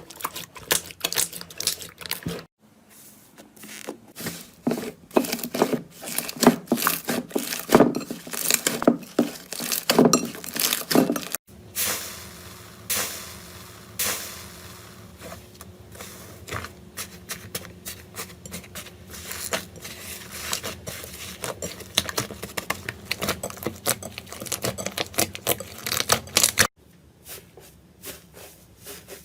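Slime being pressed, squeezed and stretched by hand, giving a dense run of small clicks, crackles and pops. The sound changes abruptly three times as one slime clip cuts to the next.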